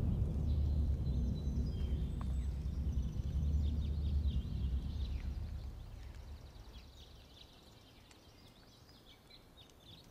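Small birds chirping in woodland ambience under a low drum rumble from the film score. The rumble fades away over the first six seconds or so, leaving only the faint birdsong.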